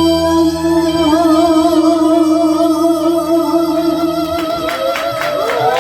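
The end of a trot song: a long held sung note with vibrato over the backing track. About four and a half seconds in, the bass drops out and a quick run of rhythmic strokes begins as the song closes.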